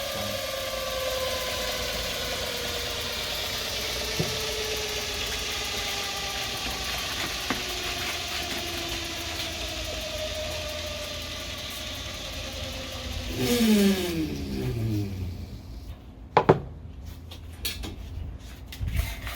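Belt grinder/sander's electric motor and abrasive belt running, the pitch slowly sinking, then falling quickly to a stop about 14 to 15 seconds in as it winds down. A few sharp clicks and knocks follow.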